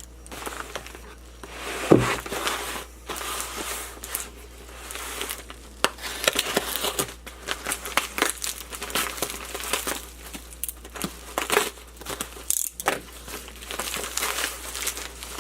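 Shipping packaging being handled and torn open by hand, with irregular crinkling and crackling throughout and a sharp knock about two seconds in.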